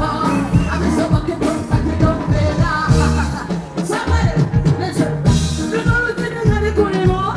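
Live band music with a steady beat and bass, and a singer's voice over it.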